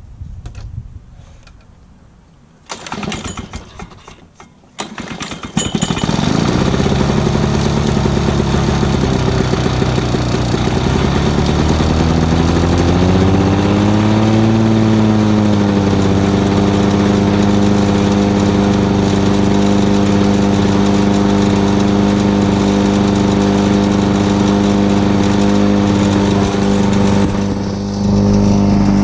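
1986 Lawn-Boy 8461 Commercial mower's two-stroke engine being pull-started: a first pull about three seconds in, then it catches around five seconds in and runs. Its speed climbs a little later and then holds steady at a loud, even run.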